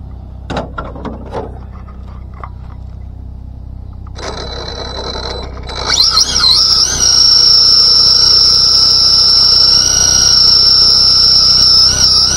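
Team Associated DR10 RC drag car's brushless motor and freshly re-geared spur and pinion drivetrain running with the car held in place, giving a loud, steady high-pitched whine from about halfway in that wavers as the throttle shifts near the end. Before it, a few sharp clicks of the car being handled.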